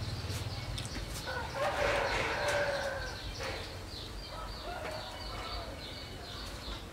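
Chickens calling: one drawn-out call of about two seconds starting about a second in, then fainter calls.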